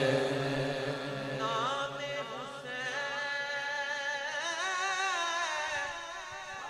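Devotional vocal chanting of an Urdu manqabat: a low held sung note fades over the first second, then a higher, wavering, ornamented vocal line carries on.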